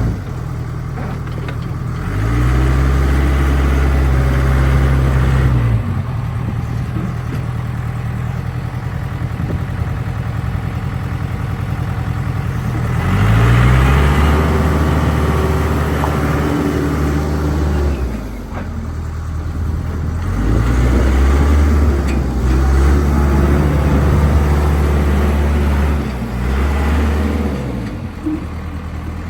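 Diesel engine of a Case 580 Super K backhoe running and repeatedly revving up and dropping back as the machine is worked. It speeds up about three times, holding the higher speed for several seconds each time before falling back.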